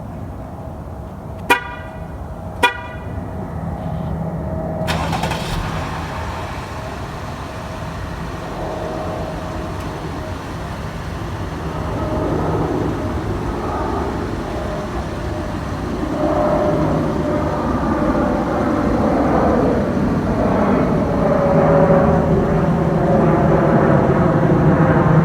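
Two short vehicle-horn toots about a second apart, then a steady rushing engine noise that grows louder toward the end.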